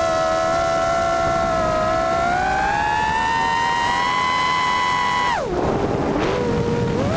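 Brushless motors of a 5-inch FPV racing quad (EMAX RS2205 2600 kV motors on a 4S battery, GemFan 5x3 two-blade props) heard through the onboard camera: a steady whine that rises in pitch over a couple of seconds as the throttle is pushed up. It drops sharply about five seconds in, as the throttle is cut at the top of a power loop, and climbs back near the end as power comes in again to pull out.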